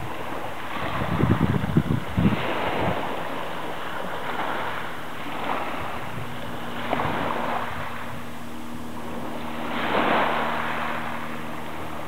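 Small waves washing onto a pebble-and-shell shore, swelling every few seconds, with wind gusting on the microphone about a second in. A faint steady low hum runs underneath.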